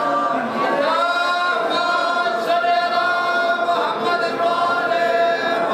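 Several voices chanting together in unison, holding long, steady notes.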